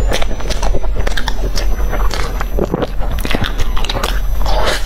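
A person chewing a mouthful of food close to a clip-on microphone: irregular mouth clicks and smacks, several a second.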